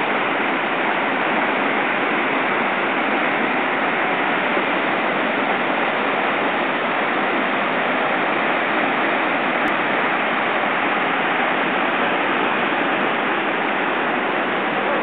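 Whitewater rapids on a rocky mountain river: a steady, unbroken rush of fast water tumbling over boulders.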